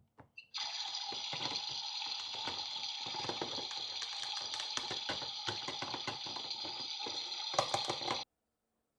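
Toy kitchen faucet running water into its sink, with small pattering splashes, then cutting off suddenly about a second before the end.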